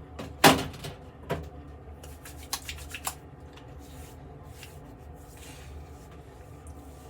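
Handling of a witch hazel bottle and its cap: a sharp knock about half a second in, then a few lighter clicks and taps.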